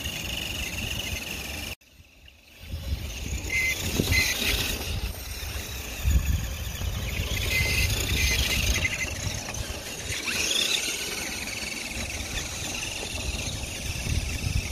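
Small electric RC crawler motor and gears whining in spurts as the Redcat Gen 7 crawls through snow, over a low, uneven rumble. The sound drops out briefly about two seconds in.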